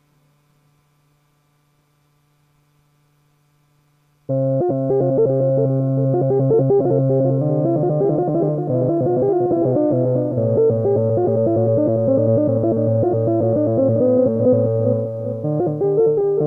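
Moog Mother-32 analog synthesizer heard through a 2hp Delay eurorack module: a faint low steady tone, then about four seconds in a loud, quick run of synth notes starts suddenly over a sustained low note and keeps going.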